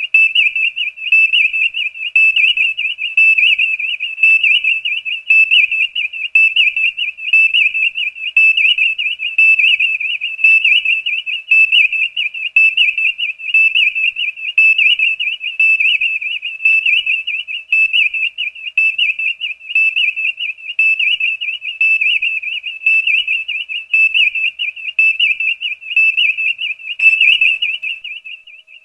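Star Trek Enterprise viewscreen sound effect: a high electronic warbling tone, pulsing steadily in loudness, that cuts off near the end.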